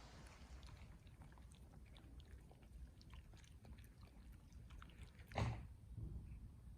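A dog tearing at and chewing grass: faint, irregular crunching clicks, with one louder tug or bite about five and a half seconds in.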